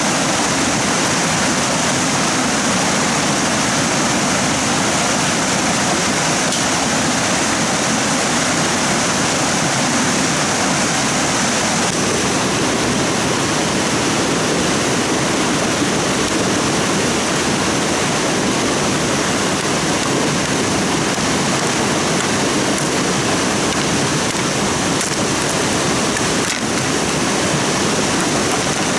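Stream water rushing steadily, a continuous loud wash of flowing water.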